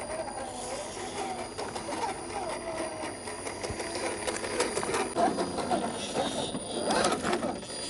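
Electric motor and gearbox of a 1/10-scale RC crawler whining, the pitch rising and falling with the throttle, with scattered clicks and knocks from the truck working over rough ground; it gets louder near the end.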